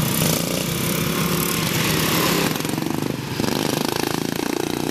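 Several racing lawn mowers' small engines running hard as they race past, the engine note shifting and dipping briefly a little past the middle.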